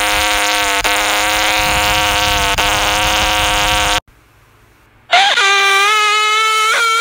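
Loud, harsh, distorted droning tone holding one pitch over a hiss. It cuts off suddenly about four seconds in, and after a second of quiet a second distorted tone starts with a quick downward slide, then holds steady.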